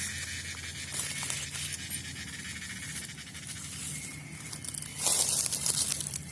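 Rustling and crackling of leaves, twigs and brush being handled, with scattered small snaps and a louder rustle about five seconds in.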